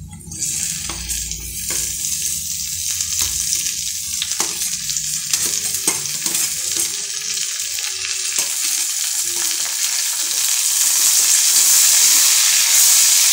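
Chopped okra going into a kadhai of hot mustard oil with fried onions and potatoes, sizzling as it hits the oil. A metal spatula scrapes and taps against the steel plate and pan in the first half. The sizzle gets louder over the last few seconds.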